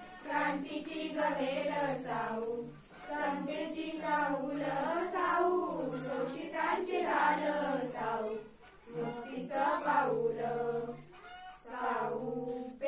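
A group of schoolgirls singing a Marathi awareness song together without instruments, in sung phrases broken by short pauses.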